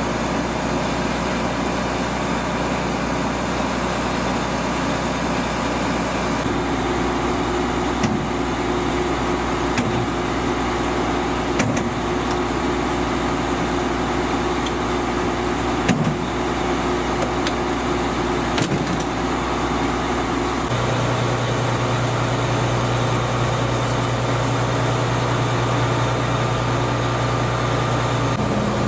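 Claas Lexion combine harvester running steadily while harvesting corn, a loud machine drone with a few sharp knocks scattered through it. About two-thirds of the way through, the drone shifts to a deeper, stronger hum.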